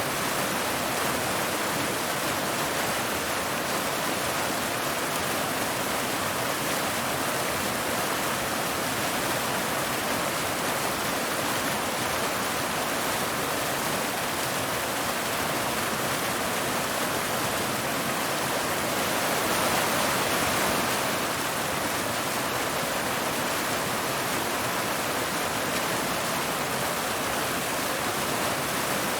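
Waterfall: water cascading over rocks in a steady rushing hiss, swelling slightly for a couple of seconds about two-thirds of the way through.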